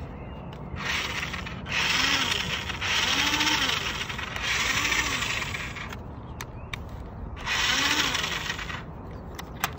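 Cheap RC rock crawler's electric motors and gears whirring in about five bursts of a second or so, each rising and falling in pitch, as the car is run and steered with its wheels off the ground.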